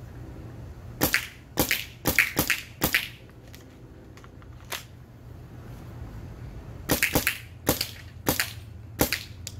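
Planet Eclipse MG100 magfed paintball marker firing on compressed air: a string of sharp shots, about six in quick succession in the first few seconds, then a pause, then about five more near the end.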